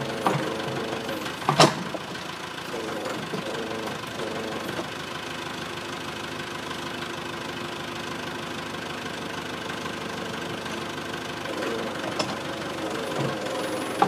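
Cat backhoe's diesel engine running steadily while the backhoe arm works, its note strengthening near the start and again late on. There is one sharp, loud knock about a second and a half in.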